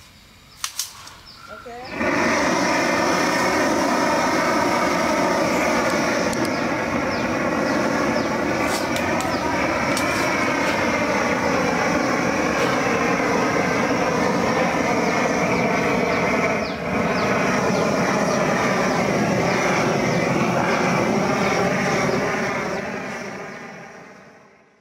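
Gas torch fed from an LPG cylinder, clicked alight and then burning with a loud, steady roar as it heats a bamboo pole for straightening. The roar starts about two seconds in and fades away near the end.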